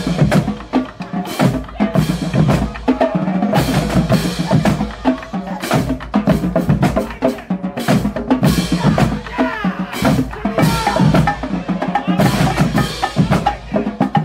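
Marching band drumline playing a cadence: bass drums, snares and sharp stick clicks in a dense, driving rhythm.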